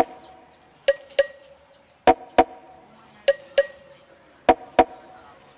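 Background music: a sparse percussion loop of sharp, briefly ringing hits in quick pairs, one pair about every 1.2 seconds.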